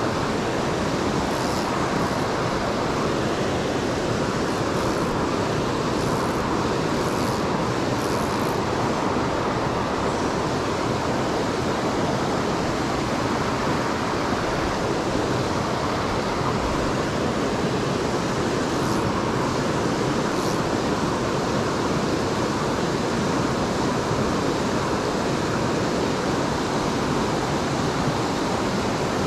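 Steady rush of a mountain stream pouring over small cascades and riffles into a pool.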